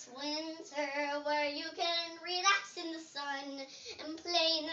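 A young girl singing an improvised tune, holding some notes steady, with short breaks between phrases.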